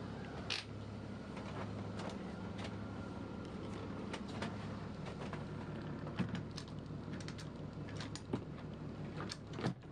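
John Deere 6068 six-cylinder marine diesel running as a steady, quiet low hum, heard from inside the barge's cabin. A few sharp clicks and creaks sit on top, the loudest about six seconds in and just before the end.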